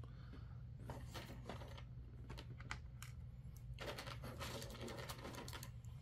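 Faint, irregular light clicks and taps of small cut plastic spacers being handled and set onto screws on a metal mounting plate, coming in short clusters over a low steady hum.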